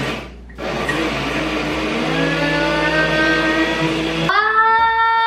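Electric mini blender puréeing curry sauce: after a brief pulse, the motor runs with a whine that rises in pitch over the churn of the liquid. About four seconds in the churning noise thins out, leaving a clear, steady motor whine.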